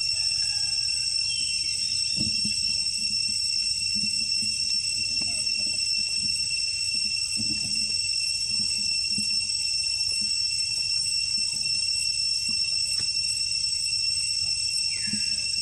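A steady, high-pitched insect chorus, with a short falling chirp about a second and a half in and another near the end.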